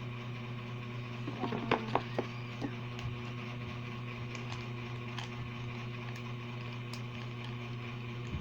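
Slime being mixed by hand with activator in a container: a few light taps and clicks about one and a half to two seconds in, then faint scattered ticks, over a steady low hum.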